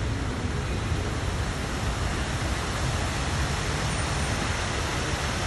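Steady rushing noise of street traffic mixed with water pouring down a tiered artificial waterfall into a lagoon.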